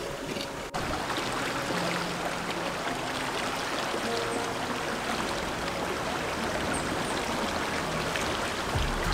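Shallow, rocky river flowing over stones: a steady rushing of water.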